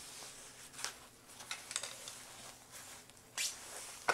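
Rustling and crinkling of foam packing sheet and paper wrap being handled and pulled open, with a few sharper crackles and ticks.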